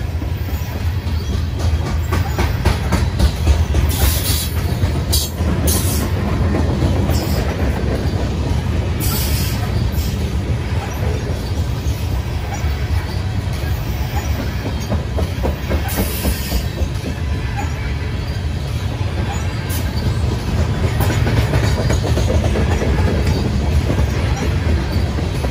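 Loaded covered hopper cars of a grain train rolling past, a steady rumble of steel wheels on the rails with clickety-clack over the joints. There are a few brief high-pitched wheel squeals, the clearest about 4, 9 and 16 seconds in.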